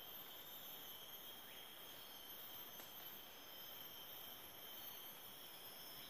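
Faint, steady chorus of rainforest insects: several high-pitched tones held without a break over a low hiss.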